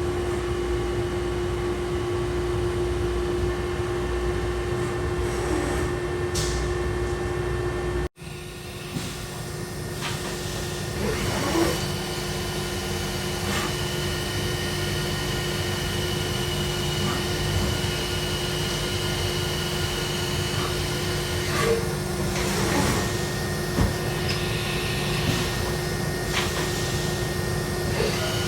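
Steady hum of machine-shop machinery running, with a few steady whining tones and occasional light clicks. The sound drops out for an instant about eight seconds in and comes back with a slightly different mix of tones.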